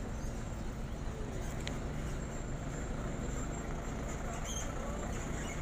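Diesel engine running steadily at low revs, a low even sound.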